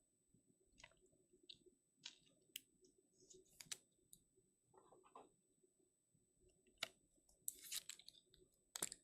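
Faint, scattered clicks and light rustles of trading cards being handled and set down on a table, with a short flurry of handling sounds near the end.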